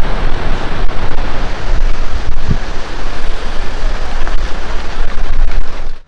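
Monsoon water falling with great force at a dam, a loud, steady rush, with wind buffeting the microphone.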